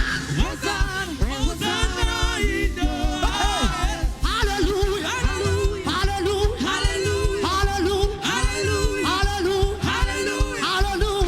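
Live praise-and-worship music: a band with a fast, steady drum beat under several voices singing.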